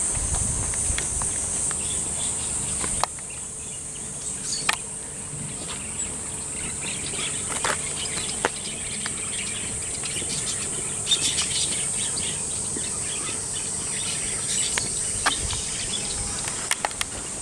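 Steady high-pitched insect drone, with a few short bird chirps and scattered clicks over it.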